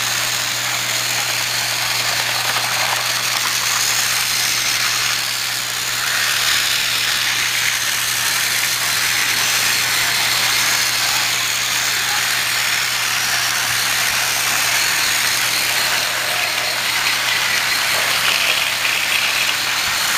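Battery-powered Trackmaster toy train running steadily on its track, its small electric motor giving a constant hum under a continuous rattle.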